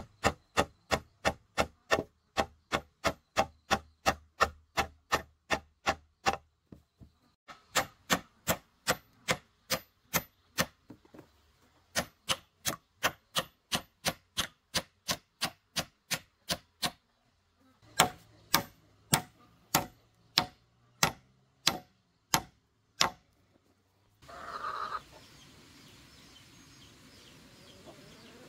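A hammer driving long nails through a log rail into a wooden post: steady blows about three a second, in four runs with short pauses between. After the hammering stops, a hen gives one short call.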